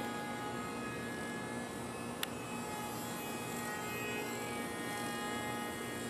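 Micro brushless AP03 motor spinning a 3020 propeller on a small foam RC plane, giving a steady buzzing whine made of several tones. A single sharp click comes about two seconds in.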